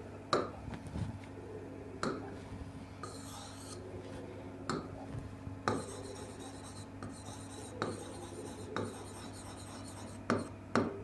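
Marker pen writing on a whiteboard: short scratchy strokes with a few small taps as the tip meets the board.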